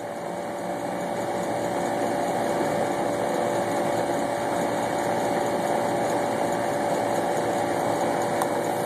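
Air conditioner's outdoor unit running, a steady hum with a constant tone.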